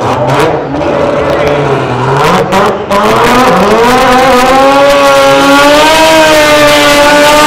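Drag car doing a burnout: sharp cracks in the first few seconds, then the engine revs up steeply and is held at high revs while the spinning rear tyres add a hissing squeal.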